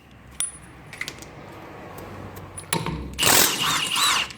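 Milwaukee M18 Fuel 1/2-inch impact wrench hammering a 21 mm wheel nut loose, one loud burst of about a second and a half near the end, with metallic ringing. A few light clicks come before it.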